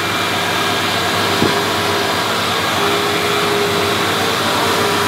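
Makita angle grinder with a flexible grinding pad running against a concrete floor edge: a steady whine with grinding hiss, the pad barely cutting into the hard concrete. A single short knock about a second and a half in.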